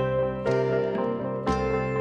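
Background music of a plucked-string instrument, a new ringing note or chord struck about once a second.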